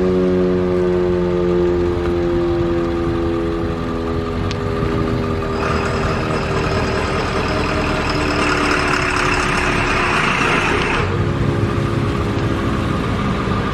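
Sentry 14V fire siren winding down, its pitch slowly falling, over a steady low rumble. A hiss starts suddenly about five seconds in and cuts off about eleven seconds in.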